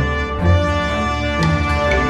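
Background music: a theme with sustained tones over a strong bass.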